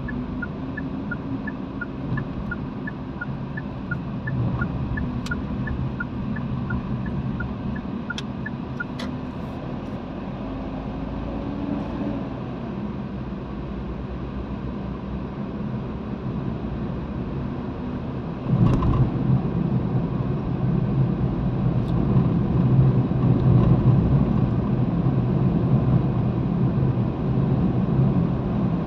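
Car interior driving noise: a steady low rumble of engine and tyres on the road, which grows louder about two-thirds of the way through. For the first third, a faint, evenly repeating two-note ticking runs under it.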